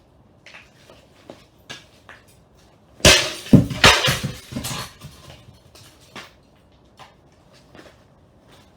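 A PC case being smashed: a cluster of loud crashing impacts about three seconds in, lasting under two seconds, with scattered small clicks and knocks of debris before and after.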